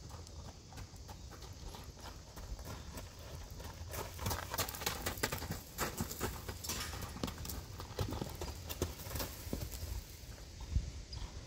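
Horse's hooves striking a dirt-and-gravel lunging ring as it canters on the lunge line; the hoofbeats grow busier and louder from about four seconds in and thin out near the end.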